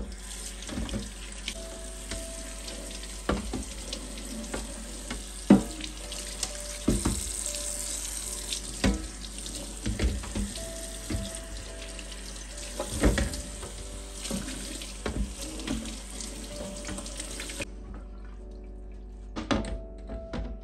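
Kitchen tap running onto a glass fridge shelf in a stainless steel sink, water splashing off the glass, with scattered knocks and bumps as the shelf is handled. The water shuts off about three seconds before the end, followed by a few more knocks as the shelf is lifted out.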